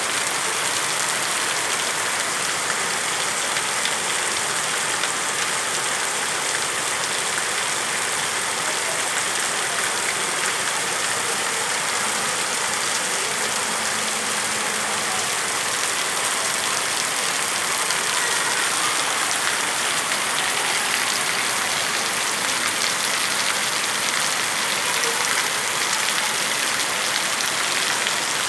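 Heavy rain falling steadily, a constant dense hiss of drops hitting surfaces.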